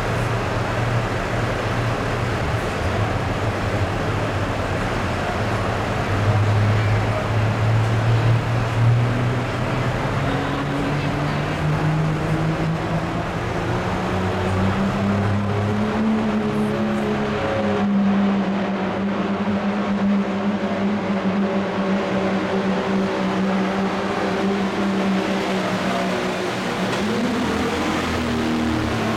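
Dodge Ram's Cummins turbo-diesel inline-six pulling a weight-transfer sled. The engine runs steadily at first, then climbs in pitch over a few seconds about halfway through and holds at high revs under heavy load.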